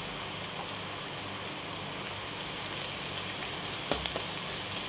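Chopped onions and green chillies sizzling steadily in hot oil in a kadhai as they are lightly sautéed, with a few spatula scrapes against the pan near the end as they are stirred.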